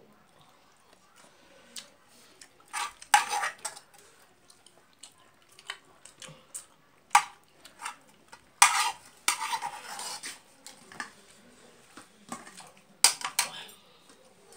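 Fingers mixing and scooping rice on a stainless steel plate, making irregular clinks and short scrapes against the metal, with the longest run of scraping about nine seconds in.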